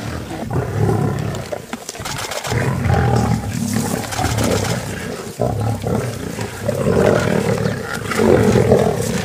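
Lions growling at one another as they feed together on a zebra kill: a run of low, rough growls one after another, growing louder near the end.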